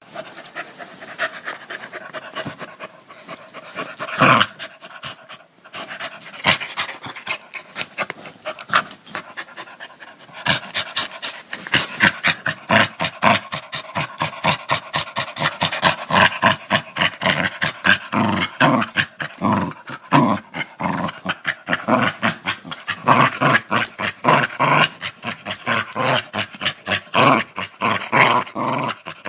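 Dog growling in rough, rapid pulses, sparse at first, then denser and louder from about ten seconds in.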